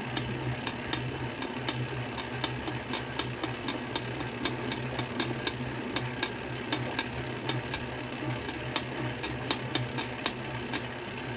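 Tacx direct-drive trainer being pedalled, giving irregular crackling clicks several times a second over a steady low drone. It is a cracking noise that could be due to a lack of grease on the spacer or cassette body in the trainer axle.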